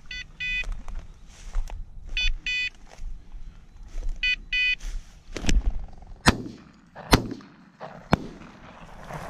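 A quick string of over-and-under shotgun shots at a flushed quail, about four sharp reports in some three seconds, each trailing off in echo. Before them come pairs of short electronic beeps about every two seconds, typical of a bird dog's beeper collar.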